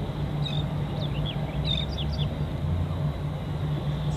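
A steady low hum, with a few quick bird chirps about half a second to two seconds in.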